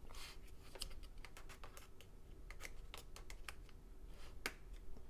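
Faint, irregular light clicks and taps of hands handling an opened MacBook Air and its parts, a sharper click about four and a half seconds in.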